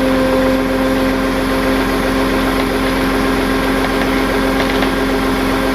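Tow truck engine running steadily, with an even drone that holds one pitch throughout.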